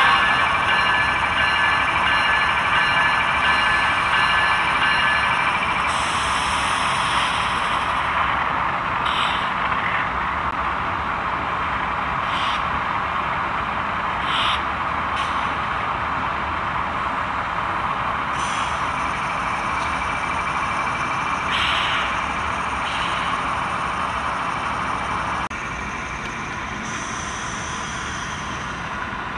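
HO scale model train running on the layout, its locomotive sound decoder playing diesel engine noise as a steady hiss-like drone, with a few short sharp bursts and a drop in level near the end.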